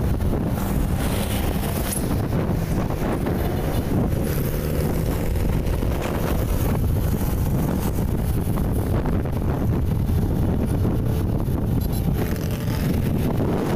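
Wind buffeting the microphone over the steady road noise of a moving vehicle.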